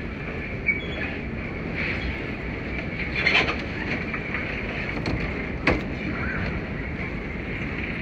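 Steady ambient rumble and hiss of a large baggage claim hall, with three short sharp knocks.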